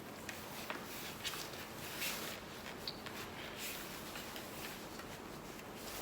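Faint rustling with scattered light clicks and ticks, as of cloth and gear being handled close to the microphone.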